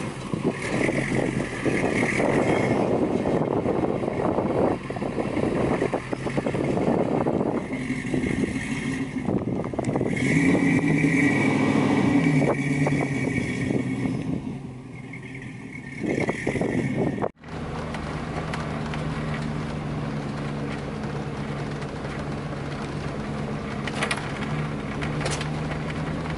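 Toyota FJ62 Land Cruiser's engine running under load as it crawls over rough ground, its pitch rising and falling over a rough noise. After a sudden cut about two-thirds of the way through, it is heard from inside the cab as a steadier drone.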